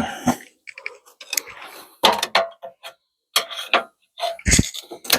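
Irregular metallic clicks and clinks of tools and suspension parts being handled while refitting a radius rod bush plate, with one heavier dull knock about four and a half seconds in.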